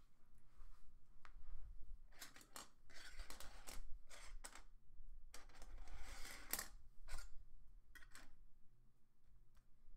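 Rustling and scraping from things being handled, in two stretches of a second or two each, with a few short clicks around them.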